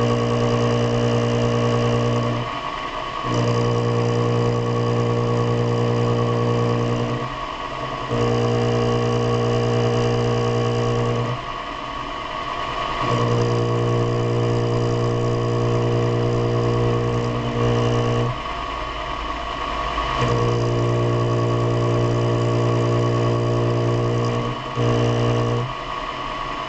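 Machine tool motor running with a steady hum. Its low drone drops out briefly every few seconds while a higher whine carries on.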